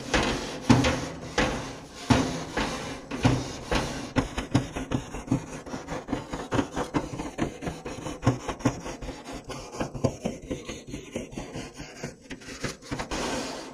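Wire grill brush scrubbing the heated grates of a gas grill, in quick back-and-forth scraping strokes that come faster in the second half.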